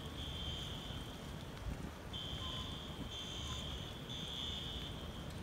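High-pitched electronic alarm beeping in about four long pulses with uneven gaps, over a low steady rumble.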